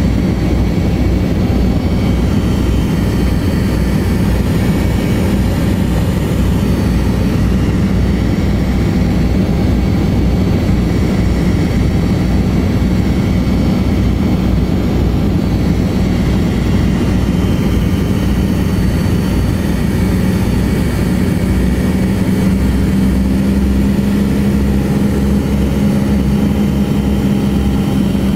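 The Lisunov Li-2's twin Shvetsov ASh-62IR nine-cylinder radial engines and propellers droning steadily, heard from inside the cabin in flight. A low hum within the drone grows stronger about three-quarters of the way through.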